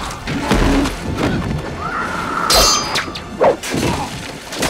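Action-film sound effects: heavy thuds and crashes, with a shattering, ringing burst about two and a half seconds in, over a dramatic music score.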